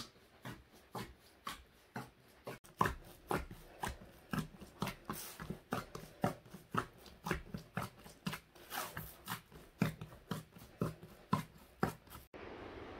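Bread dough being kneaded by hand in an aluminium basin: soft, regular squelching pushes and slaps at about three a second. They stop suddenly near the end and a steady hiss takes over.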